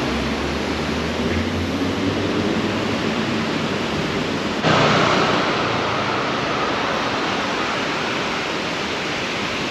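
Steady rushing outdoor noise of wind on the microphone and city street ambience, with a low rumble early on; it turns suddenly louder and brighter about halfway through.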